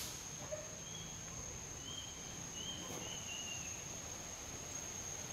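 Steady high-pitched drone of insects, with a few faint short chirps in the first half.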